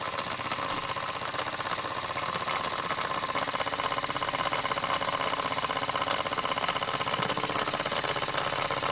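1929 Meccano steam engine, a single-acting oscillating-cylinder engine, running in steam: a rapid, even clatter that holds steady.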